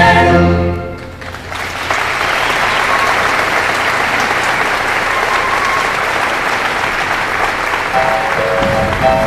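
A large choir's held final chord, sung with vibrato, dies away about a second in, and the audience then applauds steadily. Near the end, instruments start playing a few held notes over the applause.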